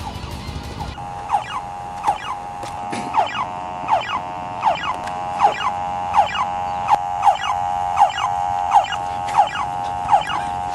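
Electronic alarm-like sound: a steady held tone crossed by a falling sweep that repeats roughly every half second to a second, quickening slightly. It starts about a second in.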